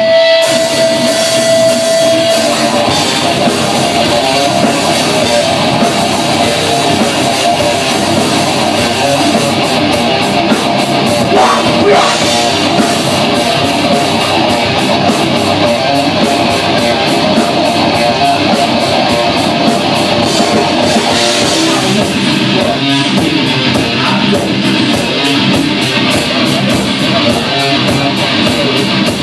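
A heavy rock band playing live at full volume: distorted electric guitar over a drum kit. A held high note drops away about two seconds in, and from the middle on, cymbals keep a steady beat.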